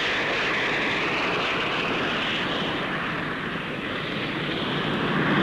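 Folland Gnat lightweight jet fighter's engine: a steady jet roar that dips slightly a few seconds in and swells again near the end.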